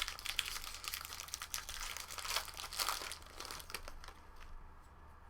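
Foil trading-card pack wrapper crinkling as it is handled and torn open, a dense crackling that dies away after about four seconds.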